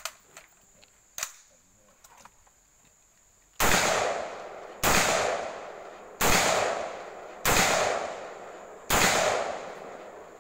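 M4-type 5.56 mm carbine firing five single aimed shots, about a second and a quarter apart, each with a long fading echo. This is a five-round string from the kneeling position. A few faint clicks come before the first shot.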